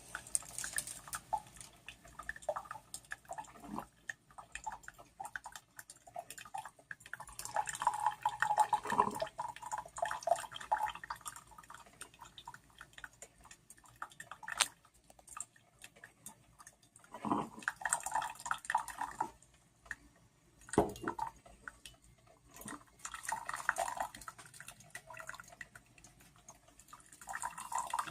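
Mr. Coffee drip coffee maker brewing, with coffee dripping and trickling into the cup. An irregular crackle of small clicks comes through, with four louder spells of a second or two each.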